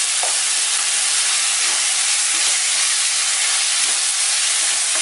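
Chopped onions, tomatoes and green chillies with ginger-garlic paste sizzling steadily in hot oil in an open pressure cooker, being stirred with a spatula.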